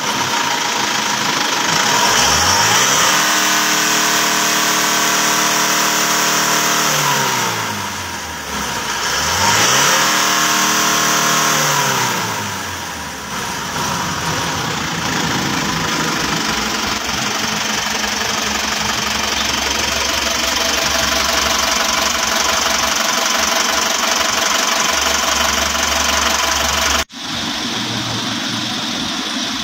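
Isuzu Traga's diesel engine revved up twice, each time held for a few seconds and then dropping back, then settling to a steady idle, run this way to check a complaint of engine knocking. A brief cut-out near the end.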